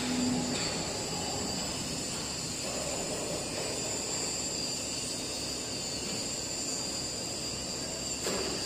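Four-roll CNC plate rolling machine running: a steady mechanical hum and hiss with a thin high whine. A short low tone sounds right at the start, and a brief knock comes near the end.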